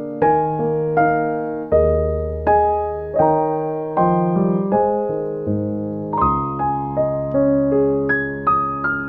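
Background piano music: a gentle melody of struck notes, each fading before the next, over held bass notes.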